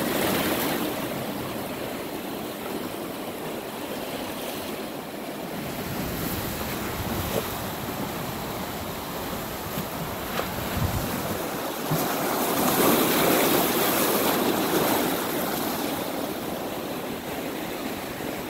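Ocean surf washing in over and between intertidal rocks, a steady rush of water that surges louder for a few seconds about twelve seconds in.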